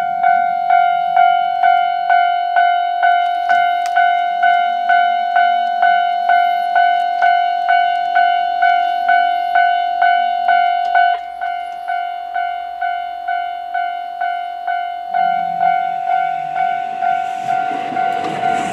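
Railway level-crossing warning bell ringing, one electronic tone repeating about twice a second, sounding because a train is approaching; it drops in level partway through. Near the end the noise of an approaching train builds under it.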